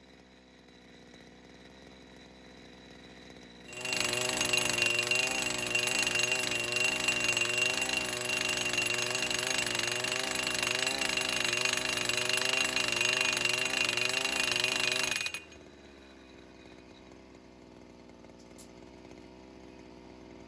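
Gas-powered pile driver hammering a steel pipe fence post: its small engine is throttled up about four seconds in into a loud, rapid hammering that lasts about eleven seconds, then drops back to a faint idle.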